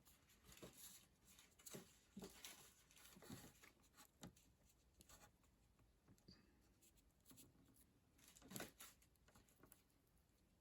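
Near silence with faint, scattered rustles and clicks of small hand work on a wire splice, one a little louder about eight and a half seconds in.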